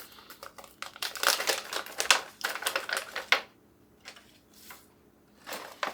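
Crinkling and rustling of Mylar pouches and oxygen absorber packets being handled, with quick clicks and rattles as the absorbers are dropped into the pouches. The handling is busiest in the first half, then drops to a few light taps.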